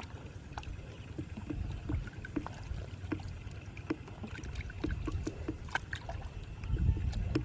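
Water splashing and sloshing in irregular small strokes, with a low rumble underneath that grows louder near the end.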